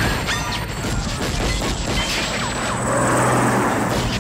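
Film battle sound: repeated gunshots and crashing impacts over a steady low engine drone. A dense rush of noise swells through the second half.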